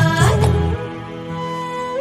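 Background music. A fuller passage gives way less than a second in to a softer, slower melody over held low notes.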